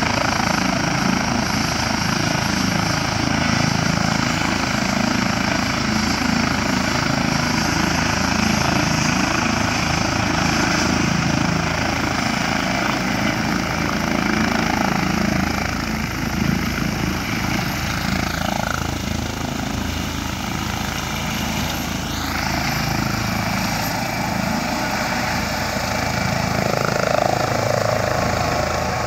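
Airbus H135 P3+ air ambulance helicopter's twin turbines and main rotor running loud and steady on the pad, then lifting off and climbing away in the second half.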